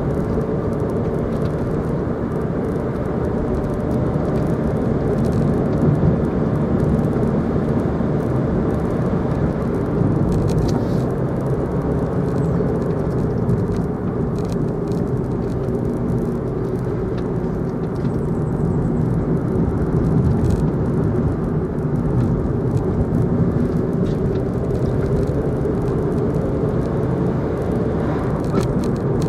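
Steady in-cabin road noise of a car being driven: engine and tyre rumble heard from inside the car.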